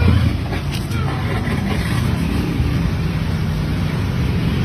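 Steady rumble of a running motor vehicle with street noise and faint voices.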